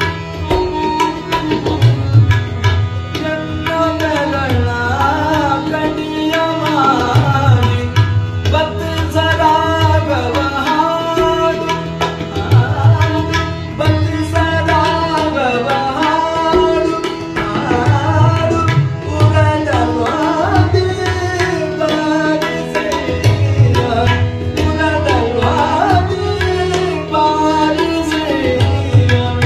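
Male vocalist singing a Kannada vachana in an ornamented Indian classical style, the voice gliding and turning through long melodic phrases. Tabla beats a rhythm with deep bass strokes underneath, over a steady drone.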